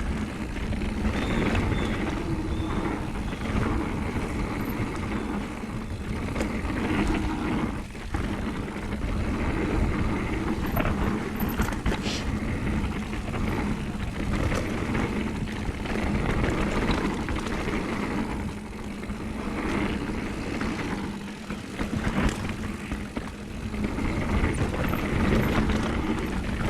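Downhill mountain bike rolling down a dirt trail: a steady rush of tyre noise with the odd knock and rattle from the bike over bumps.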